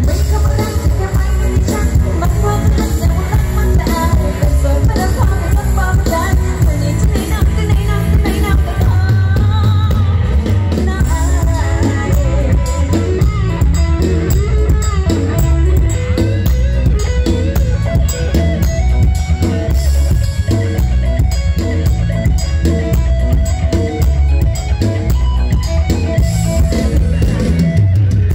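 Live mor lam band music played loud through a big PA system: drum kit and bass keep a steady beat under a wavering lead melody.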